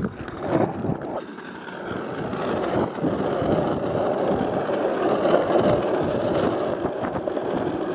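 Hard plastic wheels of a drift trike rolling over asphalt while it is towed behind a bicycle: a steady grinding rumble that builds from about two seconds in, after a few light knocks at the start.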